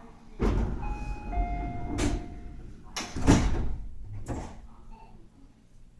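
Sliding passenger doors of a Tobu 50000 series train opening: the doors start with a sudden rumble and a two-note door chime sounds, a higher note then a lower one. Several knocks follow as the doors reach their stops, the loudest about three seconds in.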